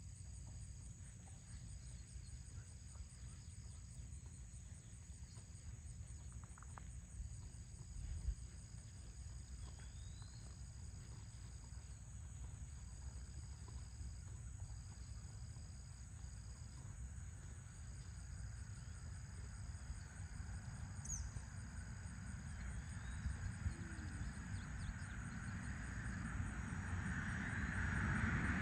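Crickets trilling steadily in high-pitched phrases of a second or two, over a low outdoor rumble. A rushing noise swells and grows louder over the last few seconds.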